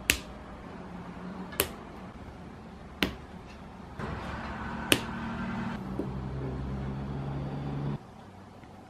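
Plastic LEGO pieces clicking as they are snapped together by hand: four sharp clicks, about a second and a half apart. A steady low hum comes in about four seconds in and stops suddenly near the end.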